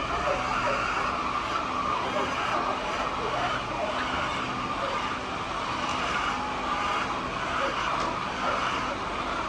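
A flock of chickens calling at once, many overlapping wavering cries, over a faint steady low hum.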